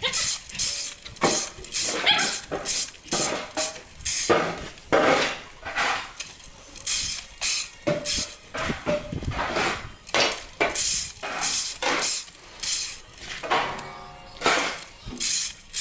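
Stall-cleaning fork scraping and rattling through bedding in repeated strokes, about one a second, as the dirty piles are picked up out of a horse stall.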